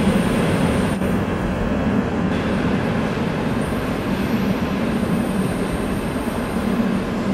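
A DB double-deck regional train hauled by a class 112 electric locomotive pulls out of the station. Its wheels rumble steadily on the rails, under a low steady hum.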